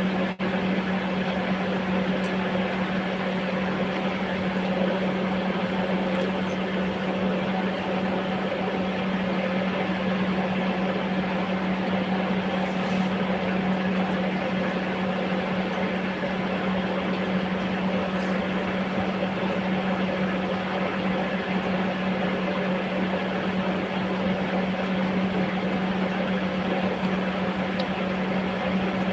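Steady machine hum: a motor running without change, a constant low drone over an even hiss.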